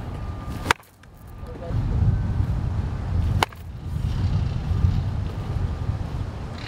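A baseball bat hitting a ball twice in batting practice: two sharp cracks about three seconds apart, over a low rumble of wind on the microphone.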